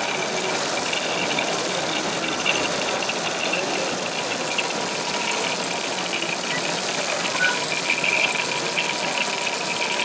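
Steady din of a busy model-show hall: crowd murmur mixed with the engine and running noise of radio-controlled model trucks and construction machines, with a rattly high whirring that gets busier in the second half.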